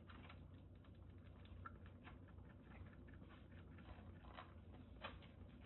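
Faint, irregular wet clicks and smacks of a kitten suckling milk from a feeding-bottle teat, over a steady low hum.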